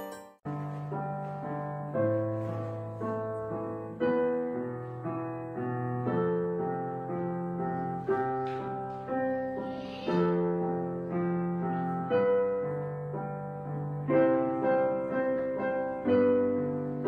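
Background music: a slow piano piece, with chords struck about every two seconds and left to fade. It starts after a brief break just after the opening.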